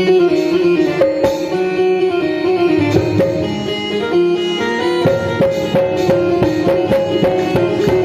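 Electronic keyboard playing a quick melody on a plucked-string, guitar-like voice, note after note over a held lower tone.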